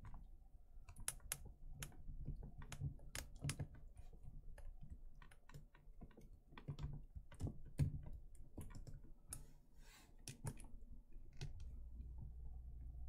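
Irregular light clicks and taps of figure statue parts being handled and pushed together during assembly, with a brief rustle about ten seconds in.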